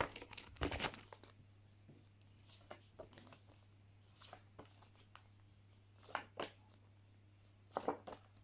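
Faint, scattered rustles and light taps of paper cards being handled, over a low steady hum.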